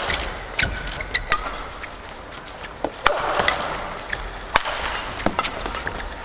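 Fast badminton doubles rally: several sharp cracks of rackets striking the shuttlecock, with short squeaks of shoes on the court floor. Arena crowd noise swells about three seconds in.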